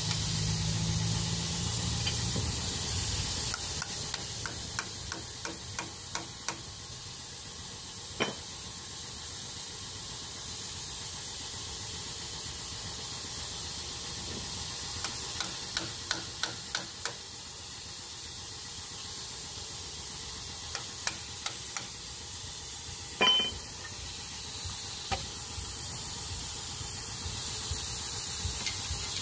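A thin metal pry tool picking and levering at the crankshaft front oil seal of an Isuzu 4HF1 diesel engine: scattered light metal clicks and taps in several runs, with one louder ringing clink about three-quarters of the way through, over a steady hiss.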